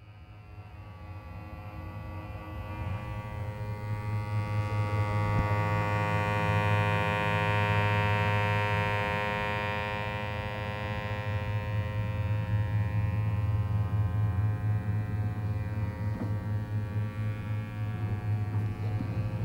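A steady, low droning hum with many overtones, fading in over the first few seconds and swelling in the middle.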